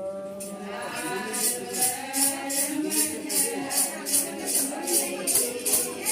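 Ponung song: group voices singing and chanting, with a shaken metal jingle beating steadily about two and a half times a second from about a second and a half in.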